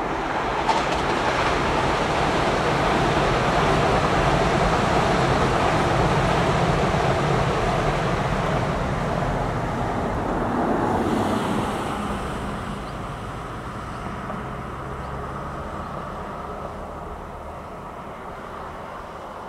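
E5 series Shinkansen passing at speed: a rushing rumble of wheels, rails and air that builds over the first few seconds and stays loud. A short burst of hiss comes about eleven seconds in, then the noise fades steadily as the train goes away.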